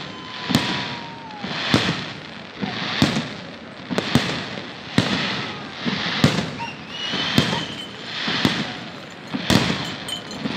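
Fireworks display: aerial shells bursting with sharp bangs roughly once a second, each followed by a hissing crackle. A few faint whistles sound among the bangs.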